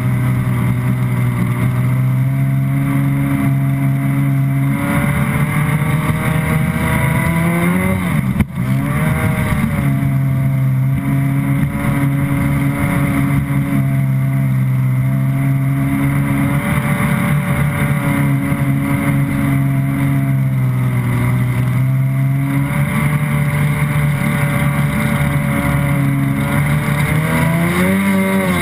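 Stand-up jet ski engine running hard under way, with water rushing past the hull; its drone shifts pitch a few times as the throttle changes. About a third of the way in the revs drop sharply and climb straight back, and they rise again near the end.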